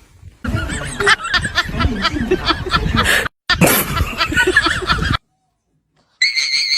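People laughing, cut off abruptly twice. Near the end a steady high-pitched tone begins.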